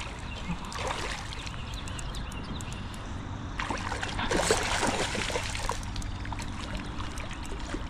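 River water running steadily, with a louder stretch of splashing about three and a half to five and a half seconds in, as a just-landed steelhead is handled at the water's edge.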